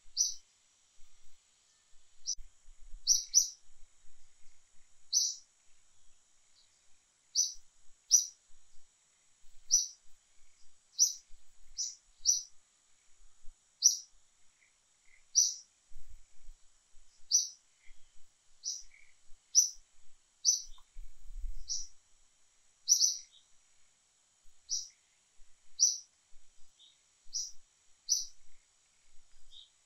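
A small bird chirping: short, sharp, high-pitched calls repeating irregularly about once a second, over a faint steady high whine.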